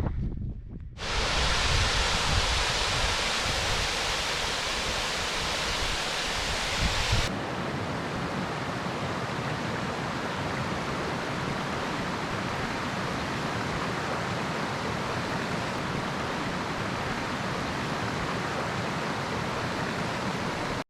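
Steady rushing open-air noise with no speech, its character changing abruptly about seven seconds in.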